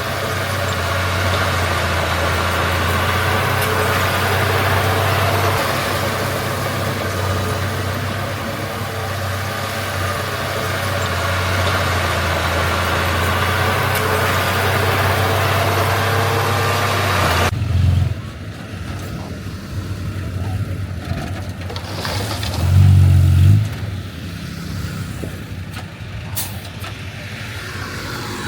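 Heavy diesel engines of earthmoving machinery running steadily with a strong low hum. The sound changes abruptly about two-thirds of the way through to a quieter engine, which swells in one short, loud, low burst a few seconds later.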